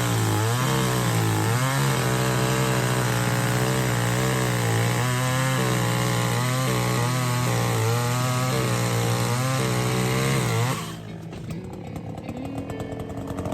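Echo CS-400 two-stroke chainsaw at full throttle cutting through a hard old tree stump, its pitch dipping and recovering under load. About eleven seconds in the throttle is let off and it drops to a quieter idle.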